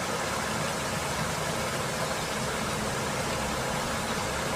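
A steady, even rushing noise with a faint low hum beneath it, unchanging throughout.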